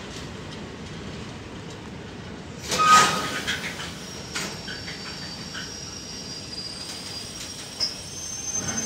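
Container freight train's wagons rolling past with a steady rumble. About three seconds in there is a loud, brief metallic screech, then thin high-pitched wheel squeal from about four seconds on, with another short screech near the end.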